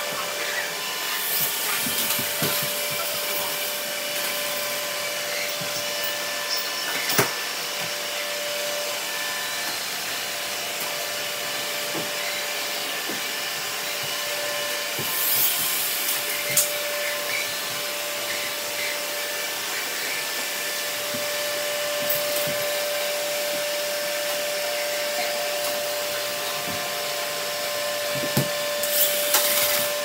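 Several robot vacuums running together on a wooden floor: a steady whir of their fans and brushes with a steady whine above it. There are occasional sharp knocks and brief bursts of higher hiss.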